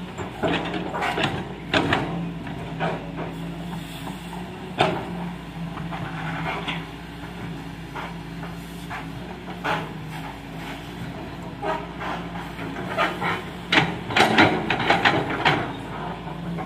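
Hydraulic excavator's diesel engine running steadily, with repeated sharp knocks and clanks of the machine at work, coming thickest in a cluster near the end.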